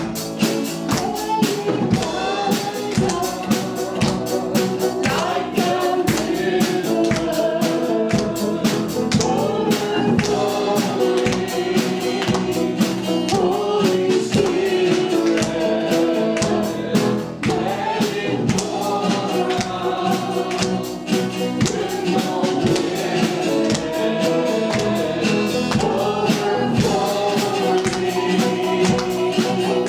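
Worship music: a group of voices singing a gospel-style song over an instrumental band with a steady percussion beat.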